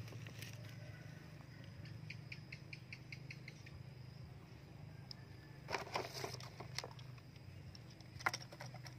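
Faint handling noises over dry ground: a run of small, evenly spaced ticks, then a louder rustle and scuffle about six seconds in and a short sharp knock just after eight seconds, over a low steady hum.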